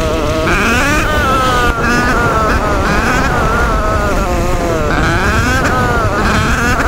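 Motorcycle engine riding off-road, its pitch rising and falling over and over as the throttle is opened and closed, with a steady low rumble underneath.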